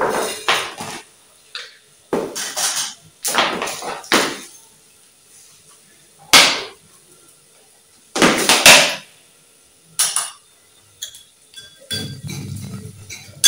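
A plastic jar being handled, opened and tipped, with salt poured from it into a small cup, heard as a series of separate rattling, clattering bursts. Near the end a ladle stirs the frying masala in a metal pot.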